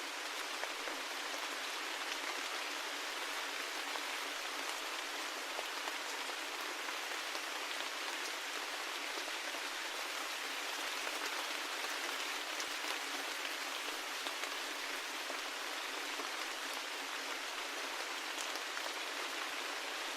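Steady rain, an even hiss of falling rain with scattered individual drop ticks.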